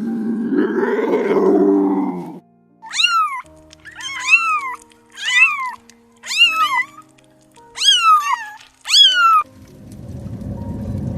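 A low growl fades out about two seconds in, then a cat meows six times, each call rising and then falling, about a second apart. A rushing noise starts near the end.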